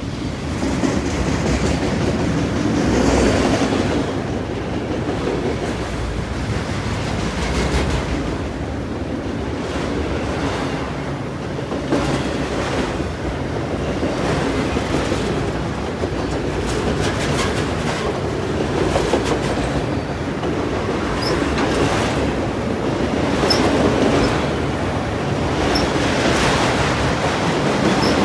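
CN freight train rolling past: a steady rumble of steel wheels on rail with clickety-clack as the wheels cross rail joints. A few faint high squeaks come about three-quarters of the way through.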